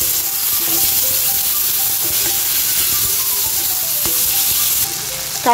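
Onion, tomato and ginger-garlic paste sizzling in hot oil in a kadai as they are sautéed to cook off the raw smell of the paste, a steady hiss that eases off about five seconds in. Soft background music runs underneath.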